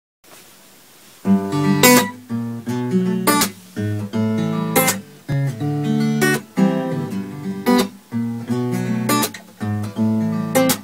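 Acoustic guitar playing a strummed chord intro, starting about a second in, with a sharp percussive accent about every second and a half.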